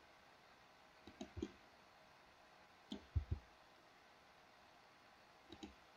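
A few faint clicks from a computer mouse and keyboard, in three short clusters: about a second in, about three seconds in, and near the end. Between them it is near silence.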